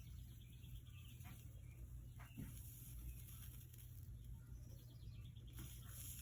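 Faint crackling and sizzling of flux and solder melting under a soldering iron on copper-foiled stained glass, over a low steady hum.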